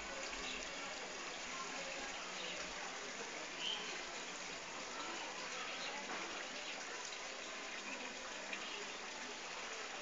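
Steady rushing background noise with no clear call or other distinct event, apart from a faint short high sound about three and a half seconds in.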